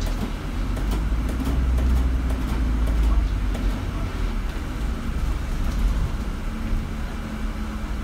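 Double-decker bus running, heard from the upper deck: a deep, steady engine and drivetrain rumble, loudest about two to three seconds in, with a few light rattles early on.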